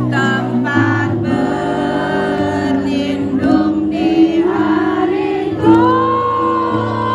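A woman singing a song into a microphone through a PA system over sustained backing music. Near the end she holds one long note.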